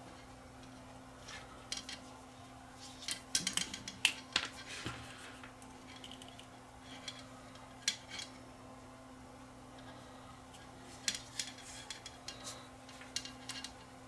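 Scattered small clicks and rustles of a power cord's plug and alligator test clips being handled and repositioned, over a faint steady hum.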